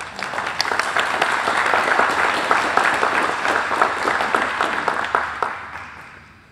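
Audience applauding, a dense patter of many hands clapping that starts at once and fades out near the end.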